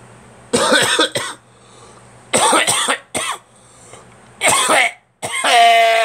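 A person coughing hard in fits: two quick coughs, then three, then a single one, and a last drawn-out cough with voice in it, like a groan. It is a dry, unproductive cough with nothing coming up, which the cougher puts down to a sinus infection.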